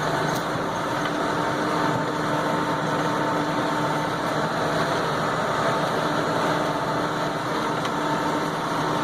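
Case IH MX120 tractor's diesel engine running steadily under way, a constant hum with a few steady tones.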